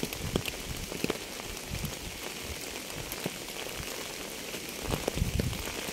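Steady rain with a constant hiss and scattered individual drops striking a surface, with a short run of louder, heavier drop impacts about five seconds in.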